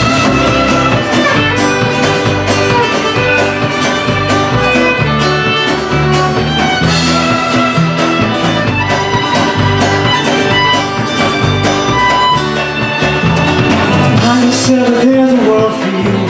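Live band playing an up-tempo tune, with fiddle lines over banjo, acoustic guitar and upright bass, and a drum kit keeping a steady beat.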